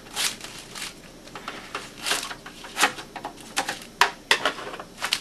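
Sheet of wax paper being handled and creased into place by hand: irregular crinkling and rustling with a few sharp clicks, the sharpest about three and four seconds in.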